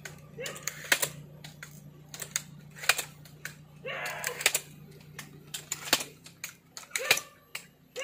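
Irregular sharp clicks and taps, with a steady low hum underneath that stops about six seconds in.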